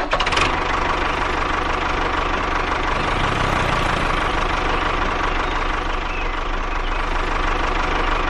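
A small motor running steadily with an even whine, from the DIY mini chainsaw or tractor model.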